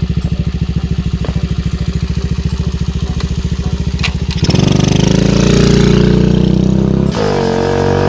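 A small engine idling with a fast, even chugging pulse for about four seconds. It then gives way to a steady low droning tone that shifts in pitch abruptly about seven seconds in.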